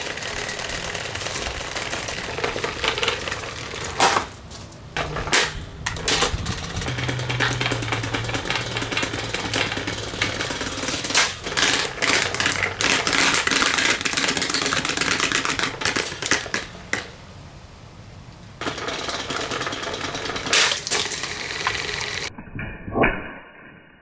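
Rapid, continuous clattering and knocking from an Impress table fan being destroyed, with louder hits standing out and a low hum that drops in pitch in steps partway through. Near the end the sound cuts abruptly to a muffled passage with steady tones.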